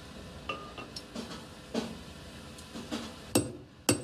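Blacksmith's hammer striking metal on an anvil: a handful of irregular blows with a metallic ring, the two loudest near the end.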